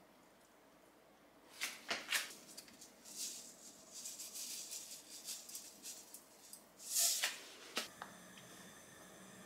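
Handling a plastic seasoning shaker over a pan of food: a few sharp clicks, then light shaking and sprinkling, with a louder shake about seven seconds in.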